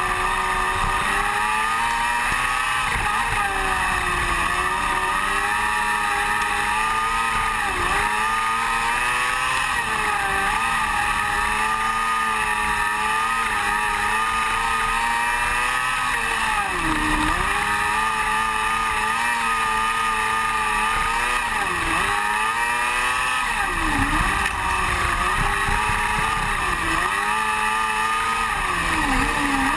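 Open-wheel dirt race car's engine heard from the onboard camera, running at high revs in a race. The pitch drops sharply and climbs back again about eight or nine times as the throttle is lifted for the turns and reapplied down the straights.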